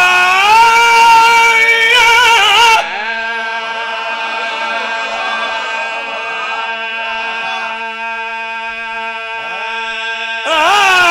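A man's loud, impassioned sung recitation into a microphone, with other men's voices joining in. About three seconds in the singing breaks off, leaving a quieter steady held tone with faint voices under it, and the loud singing starts again near the end.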